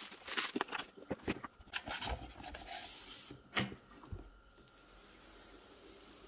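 Packaging being handled: plastic wrap crinkling and a cardboard box being shifted, a run of small crackles and knocks that dies down to quiet about four seconds in.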